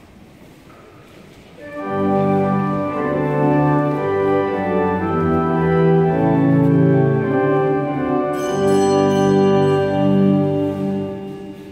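Church organ starts playing loud, sustained chords about two seconds in and stops near the end.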